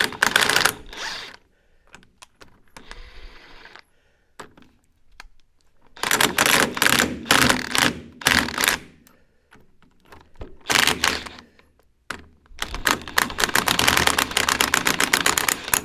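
Cordless impact wrench hammering on the fasteners of a skid steer's wheel hub in four rapid rattling bursts: a short one at the start, a longer one about six seconds in, a brief one near eleven seconds, and a long one from about twelve and a half seconds to the end.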